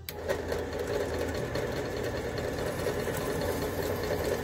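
Drill press motor starting up and running steadily.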